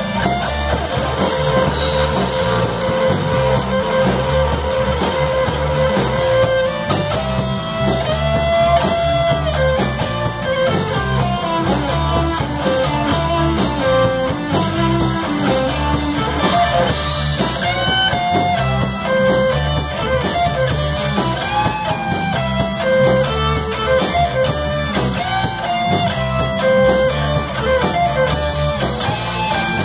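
Live rock band playing: electric guitars over bass and drums, with a guitar line of held notes and bends.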